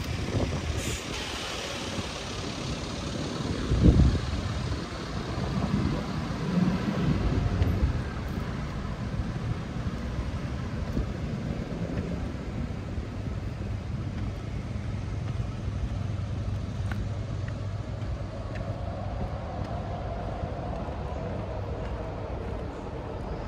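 Road traffic with trucks passing close by. The low rumble is loudest in the first several seconds, swelling about four seconds in, then settles to a steadier, quieter hum of traffic.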